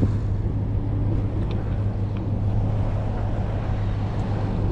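Motorcycle engine running steadily at low cruising speed, a constant low hum under wind and road noise.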